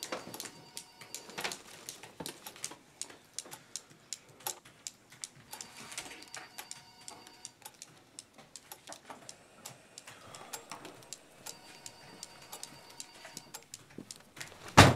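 Laptop keyboard typing: quick, irregular clicking of keys. A single loud thump comes near the end.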